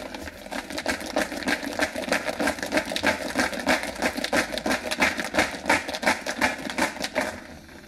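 Marbles rattling inside a jar of thinned matte medium as it is shaken to mix it: a rapid, even clatter of several knocks a second that stops just before the end.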